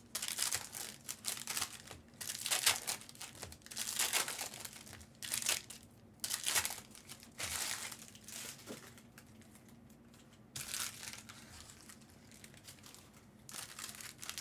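Plastic trading-card packaging crinkling and rustling as it is handled, in irregular bursts that are louder in the first half and fainter in the second.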